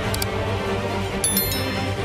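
Background music with steady sustained tones, overlaid by a quick double click just after the start and a short bright chime about a second and a quarter in, from the subscribe-button and bell animation.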